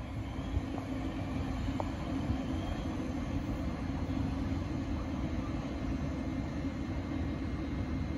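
Thameslink Class 700 electric multiple unit standing at the platform, giving off a steady low hum and rumble.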